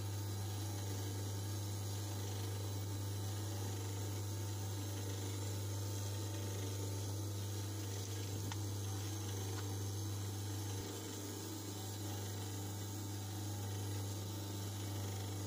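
Korvet 76's electric motor running with a steady low hum, its new 3D-printed cooling impeller blowing air out through the rear fan cowl.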